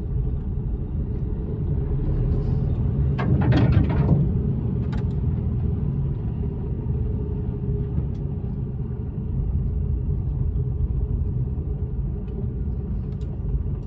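HGV's diesel engine running at low revs, heard from inside the cab as a steady low rumble as the lorry creeps along. About three and a half seconds in, a brief louder burst of noise rises over it.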